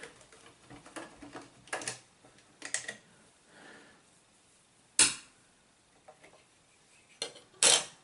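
Scattered plastic clicks and knocks from handling a Casio DH-100 digital horn's casing as its battery cover is taken off. The sharpest knock comes about five seconds in, with two more near the end.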